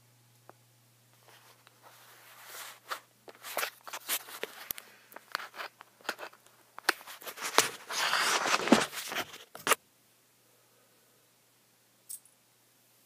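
Handling noise on a phone's microphone as the phone is moved and set down: a run of knocks, clicks and rubbing scrapes. It builds to its loudest, densest stretch about seven seconds in, stops suddenly about ten seconds in, and one more click follows near the end.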